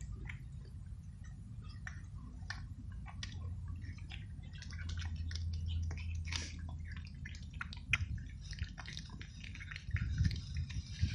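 Two cats chewing dry kibble, a scatter of small crunching and wet clicking chewing sounds, over a low rumble.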